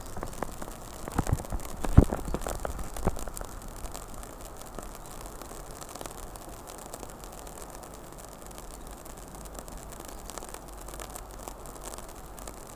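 Steady rain falling, with a few sharp knocks and crackles in the first three seconds.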